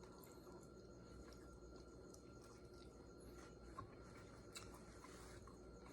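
Near silence, with a few faint wet chewing and mouth sounds from someone eating tacos.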